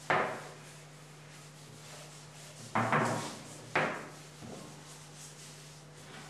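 Curved bentwood parts of a rocking chair handled on a workbench: three short scraping knocks of wood, one at the start and two about three and four seconds in, each fading out quickly.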